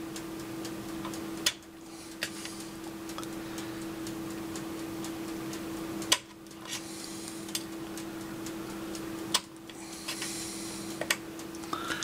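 Light, irregular clicks and taps of a small blade cutting through polymer clay onto a ceramic tile, with three sharper clicks spread through. A steady low hum runs underneath.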